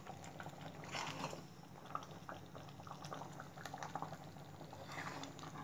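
Thick tamarind-and-coconut curry simmering in the pan: faint, irregular little bubbling pops.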